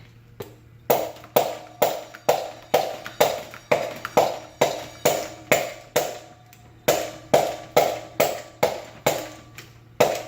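Repeated hammer blows on metal, about two a second with a short pause near the middle, each one ringing briefly: rapping on a part seized on a fan motor's shaft to knock it loose.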